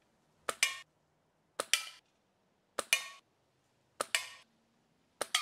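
A Diana Model 16 spring-piston air rifle fired five times, about a second apart; each shot's pop is followed a split second later by a ringing clink as the pellet strikes a tin can.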